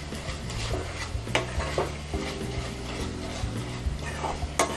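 A metal spoon stirring and mashing a thick, softened tomato-and-onion masala in an aluminium kadai, scraping the pan, with sharp clinks of the spoon against the metal a little over a second in and again near the end.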